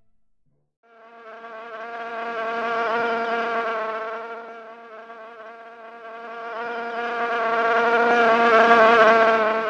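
A fly buzzing: one steady, even-pitched drone that starts about a second in and grows louder and softer twice, loudest near the end, as if passing close to the microphone and away again.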